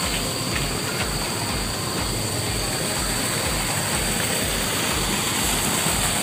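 Steady rush of water pouring from an outflow, with a low, regular thumping underneath about three times a second.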